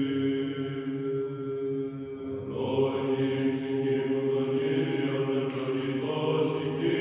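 Slow church chant sung in long held notes, most likely Orthodox chant. A fuller, brighter passage comes in about two and a half seconds in.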